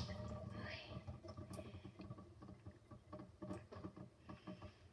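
Faint, irregular small clicks and taps as a water-filled dimple fidget toy is handled at the sink.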